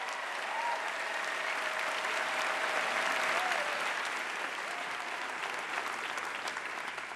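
Audience applauding, building to a peak about halfway and dying down near the end, with a few voices calling out over the clapping.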